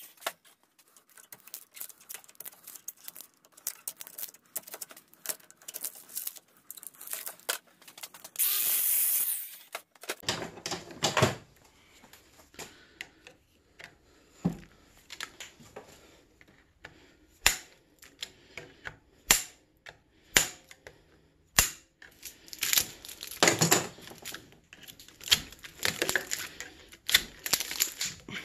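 Irregular metal clicks, taps and knocks of hand tools prying and pulling apart a small transformer's core and copper windings held in a vise. There is one short angle-grinder cut of about a second, about nine seconds in.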